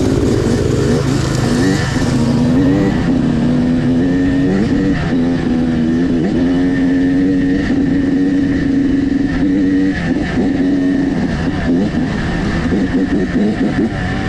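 Dirt bike engine running at trail pace, its note rising and falling as the throttle is rolled on and off, holding steady for a few seconds in the middle. A few short knocks near the end.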